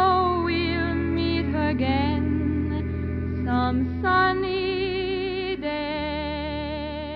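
Background music: long held melody notes with a wavering vibrato over steady bass notes, slowly getting quieter.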